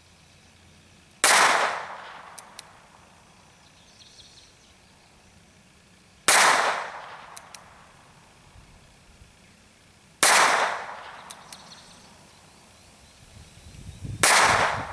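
North American Arms mini revolver firing .22 Short: four sharp shots about four seconds apart, each with a short echoing tail. A couple of faint clicks follow each of the first three shots.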